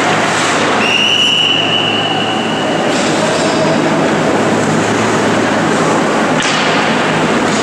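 Ice hockey referee's whistle blown once, a steady high tone held about two seconds, stopping play after the goalie covers the puck. It sounds over the constant noisy hiss of the rink, and a sharp clack comes near the end.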